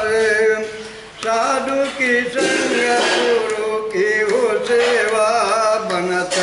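A man singing a Hindi devotional bhajan, a drawn-out wavering melody line with little clear wording, briefly dropping off about a second in before carrying on.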